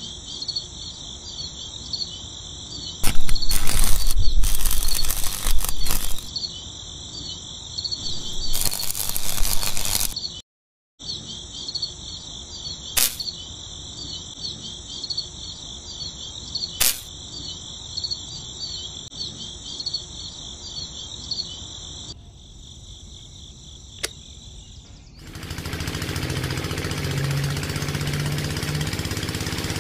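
A steady, pulsing high insect-like chirring, interrupted twice by loud rustling bursts and a couple of sharp clicks. Near the end a small DC motor starts, running with a steady hum and whir as it drives a belt-driven toy water pump that spouts water.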